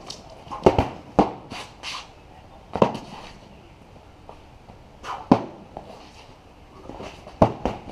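Padded boffer swords smacking against round shields and each other: a quick flurry of sharp hits about a second in, single hits around three and five seconds, and another quick run of hits near the end.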